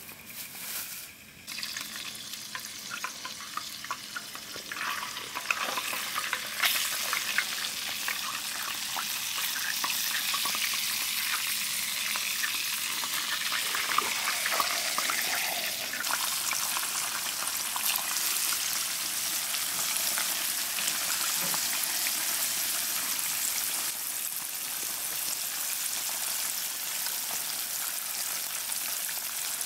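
Flour-dredged river fish, perch among them, frying in hot oil in a pan: a hissing sizzle with crackling pops. It starts about two seconds in, grows louder a few seconds later, then holds steady.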